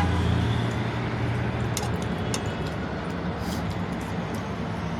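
Steady low hum and background noise, with a few short sharp clicks.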